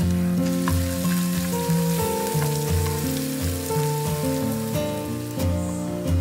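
Crushed ginger and garlic sizzling in hot oil in a pan, under background music with held notes that change pitch every second or so.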